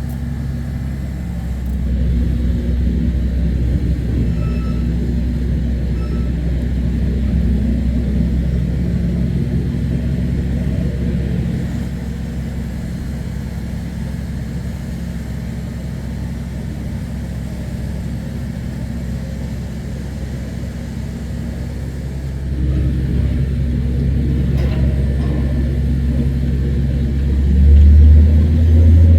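Engine of repair machinery running with a steady low rumble, changing level a few times and swelling louder near the end.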